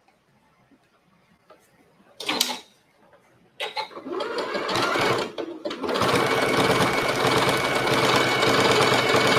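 Sewing machine stitching pieces of leather scrap together: after a short clatter about two seconds in, it starts in a few short stop-start runs, then runs steadily from about six seconds in.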